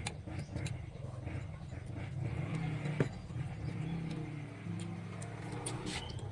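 A motor engine running steadily with a low hum whose pitch shifts a little, and a single sharp click about three seconds in.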